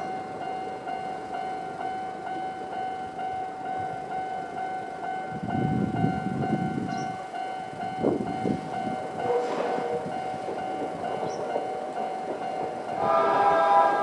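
Level-crossing warning bell of the older standard type, sounding steadily while the barriers are down. A low rumble passes about six seconds in. Near the end a louder sound with several tones joins in as the train comes near.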